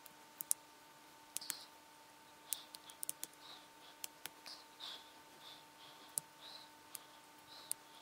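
Irregular small sharp metallic clicks and brief scratches as a scalpel tip picks and pries at the spring bar of an Amazfit Bip watch strap, a bar seized by rust after seawater.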